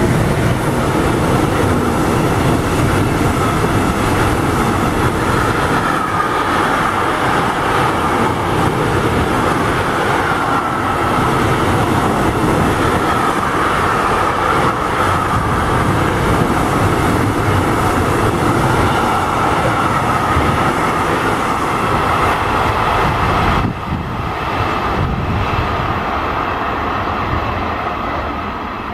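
Container freight train passing close at speed: wheels clattering and rumbling on the rails, with a steady high ringing tone in the wheel noise. The noise drops suddenly about 24 seconds in as the last wagon goes by, then fades away.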